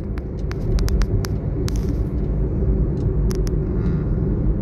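Steady low road and engine rumble of a moving car, heard from inside the cabin, with scattered light clicks over it.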